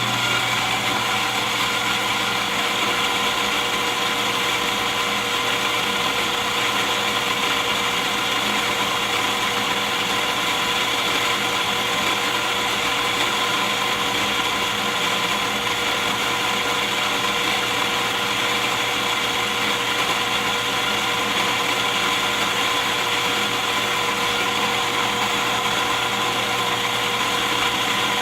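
Electric coffee grinder running at a constant pitch.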